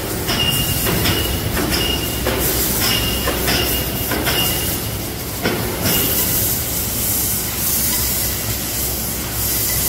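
CNC sheet-metal cutting machines working steel plate: steady machine noise and hiss, with a high whine that comes and goes in the first half and a few sharp knocks. The hiss grows louder about six seconds in.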